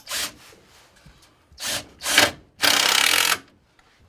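Power drill-driver driving a screw into wooden benchwork in several short bursts, then one longer steady run of just under a second.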